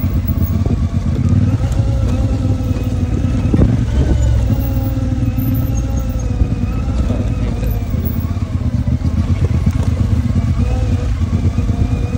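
CFMOTO 450MT's parallel-twin engine running steadily under a heavy low rumble as the bike is ridden off-road, its pitch rising and falling a little.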